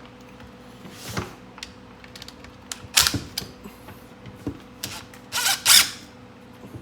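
Bolts on a string trimmer's loop handle clamp being tightened with a hand tool: scattered clicks and a few short scraping bursts, the loudest two about five and a half seconds in.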